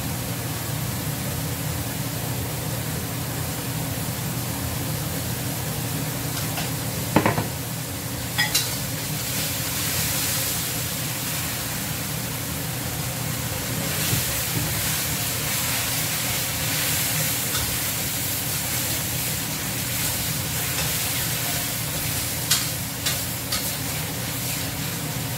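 Greens sizzling in hot oil as they are stir-fried in a steel wok, with the spatula stirring and scraping. The sizzle grows louder about ten seconds in. A few sharp clinks of utensil on metal come a little past seven and eight seconds in and again near the end.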